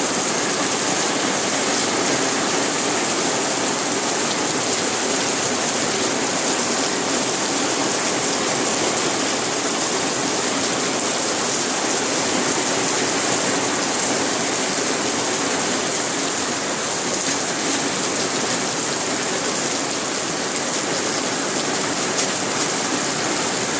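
Rain falling steadily, an even unbroken hiss with no separate drops or breaks standing out.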